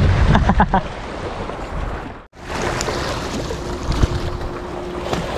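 Wind and water noise aboard a small fishing boat at sea, an even rushing hiss. It cuts out for a moment about two seconds in, and a faint steady hum and a couple of light knocks come in after it.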